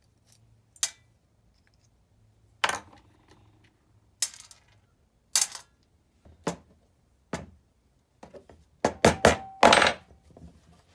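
Hand tools and small metal carburetor parts knocking and clinking on a work surface: a string of separate sharp knocks, then a quick cluster of louder ones near the end, one with a short metallic ring.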